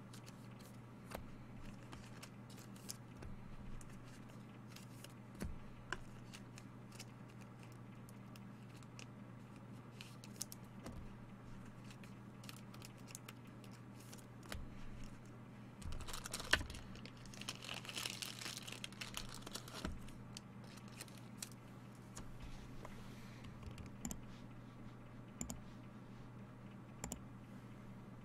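Scattered computer keyboard taps and mouse clicks, with a few seconds of rustling and crinkling about two-thirds of the way through, over a steady low hum.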